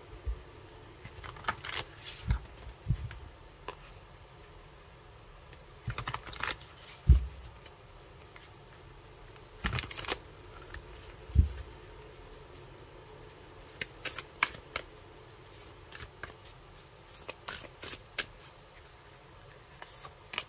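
Cards of a large oracle deck being shuffled and handled in irregular clusters of rustling and snapping, with a few low thumps.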